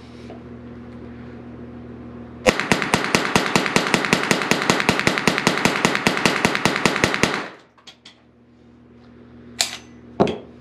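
Derya TM22 .22 LR semi-automatic rifle fired as fast as the trigger can be pulled in a magazine dump: a rapid string of shots, several a second, lasting about five seconds and stopping suddenly. A couple of faint clicks follow near the end.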